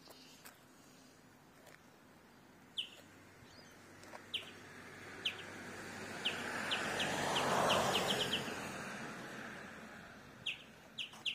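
A bird calling in short, sharp high chirps, a few spaced out early on, a quick run of them in the middle and a few more near the end. Under them, the noise of a passing vehicle swells to a peak about eight seconds in and fades away.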